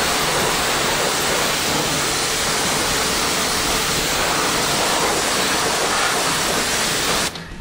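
Pressure-washer jet spraying onto a car's alloy wheel and tyre, rinsing off sprayed-on wheel cleaner. It is a steady, loud rushing hiss that cuts off abruptly just before the end.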